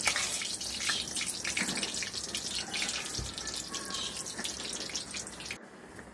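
Raisins deep-frying in hot ghee, a dense sizzle and crackle, with a steel spoon stirring them in a wire strainer and an occasional knock. The sizzling drops away suddenly near the end.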